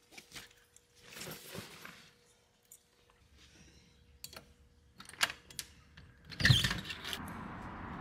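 A series of sharp clicks and rustling, then a loud thump about six and a half seconds in, after which a steady low hum sets in.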